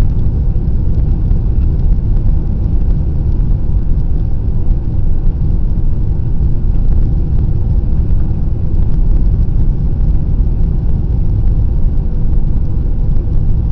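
Airliner cabin noise: a steady, loud low rumble with a faint steady tone above it.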